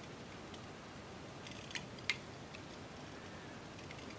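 Faint handling noise from a small gyroscope module held in the fingers: a few light clicks about halfway through, over low background hiss.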